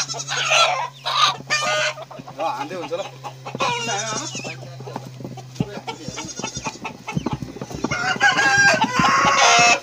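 A chicken squawking and clucking in distress as it is caught and carried by hand, in repeated bursts, loudest near the end.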